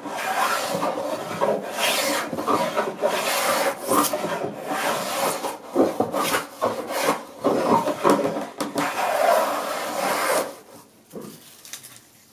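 Vintage Bailey No. 8 jointer plane with a Veritas O1 blade set for a heavy cut, planing the edge of a board: a run of cutting strokes, each a hiss of wood as thick shavings peel off. The strokes stop about ten and a half seconds in.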